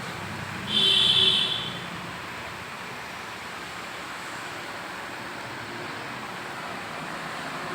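Z3925 radial drilling machine's gearbox running with a steady mechanical hum. About a second in, a brief high-pitched squeal lasts about a second and is the loudest sound.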